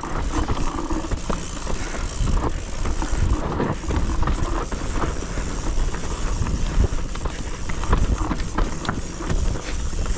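Mountain bike descending rough, steep terrain: wind buffeting the microphone with a constant rumble, over a string of knocks and rattles as the tyres and frame hit roots and rocks.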